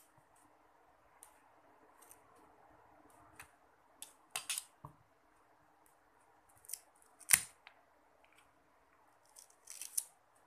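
Plastic spudger clicking and scraping against a smartphone battery and its frame as the battery is pried out: scattered short sharp clicks, the loudest about seven seconds in, and a short run of crackly scraping near the end as the battery comes free.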